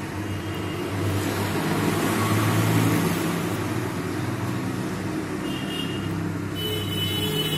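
SMD hot air rework station blowing, a steady rushing hiss over a low hum, as it is used to heat and lift an audio IC off a phone motherboard. A thin high whine comes in near the end.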